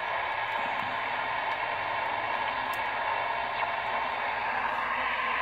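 Steady radio static hiss from a CB transceiver's loudspeaker, an even rushing noise with no signal on it.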